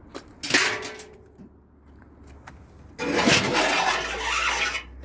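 Tumble dryer parts being handled during dismantling: a sharp metal clank that rings briefly about half a second in, then a loud scraping rush lasting nearly two seconds.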